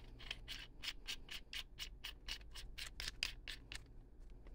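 Metal threads scraping as a threaded part is spun by hand onto the mandrel of a Doyle rivet nut setter, in short, even strokes about four or five times a second.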